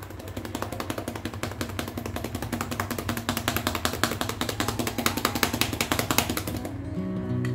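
Fried rice sizzling and crackling in a hot frying pan, a dense rapid crackle over a steady low hum. Acoustic guitar music comes in near the end.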